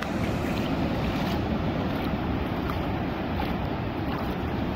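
Wind buffeting the microphone over the steady wash of surf breaking on a beach.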